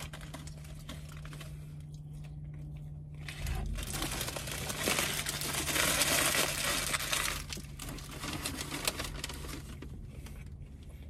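Paper burger wrapper crinkling and rustling as it is handled, loudest from about three and a half to seven and a half seconds in, over a faint steady low hum.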